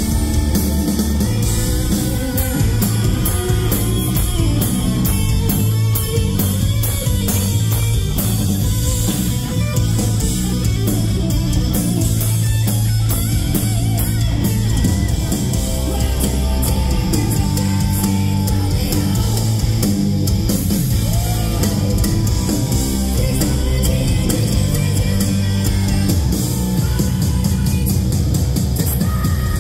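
Live heavy metal band playing loud, with distorted electric guitars, bass and drum kit.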